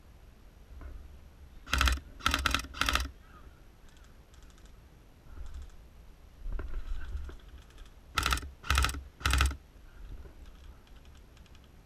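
Airsoft guns firing short bursts of rapid shots: four loud bursts about two seconds in and three more about eight seconds in, with fainter bursts from farther off in between.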